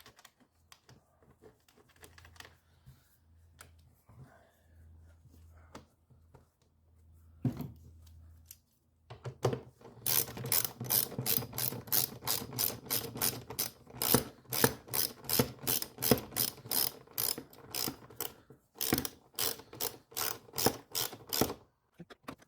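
Hand ratchet clicking in quick, even strokes, about three or four clicks a second, as the fasteners on the engine air filter housing cover are driven back down. Quieter knocks of handling the cover come before it.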